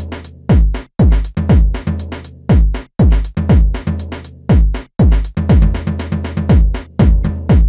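Electronic background music with a steady drum-machine beat: deep kick drums that drop in pitch, with sharp ticks between them.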